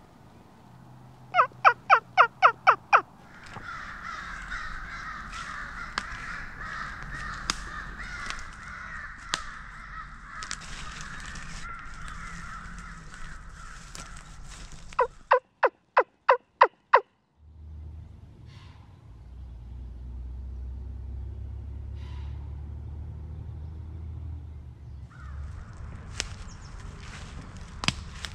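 Two loud runs of turkey yelps, seven or eight quick falling notes each, one a second or two in and the other about halfway through. Between them there is a softer steady outdoor background.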